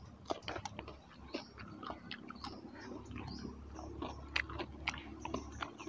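People chewing and smacking their lips as they eat rice, sliced cucumber and dried fish by hand: a scattered run of small wet clicks and light crunches.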